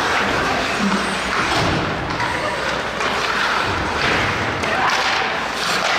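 Ice hockey play in an arena: a steady hiss of skates on the ice, with dull thuds against the boards about 2 s and 4 s in, and scattered voices.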